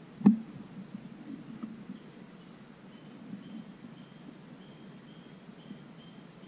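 A single sharp click close by as the hunting gun is handled, far too short and light for a shot. After it, faint short high chirps repeat about twice a second in the woods over a steady hiss.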